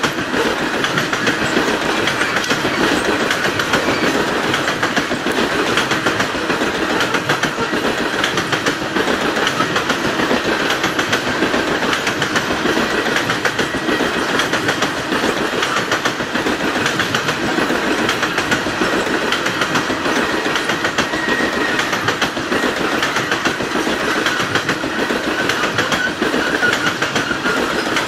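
Loaded coal cars of a freight train rolling past, their steel wheels on the rails making a steady, continuous rumble and clatter.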